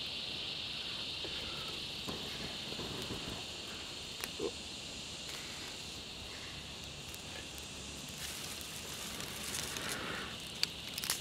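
Steady high-pitched chorus of insects with the faint crackle of a small paperbark-tinder fire catching in a stone ring. From about eight seconds in comes a breathy rush of air as the new fire is blown on.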